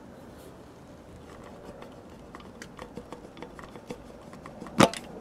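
Tyre plug gun being drawn out of a plugged puncture in the tread: a scatter of light metallic clicks and ticks, then one sharp, loud click near the end.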